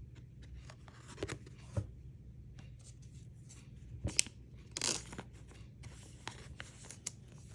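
2023-24 Panini Mosaic basketball trading cards being handled and slid against one another: scattered light clicks and short swishes as each card is moved, with a sharper click about four seconds in.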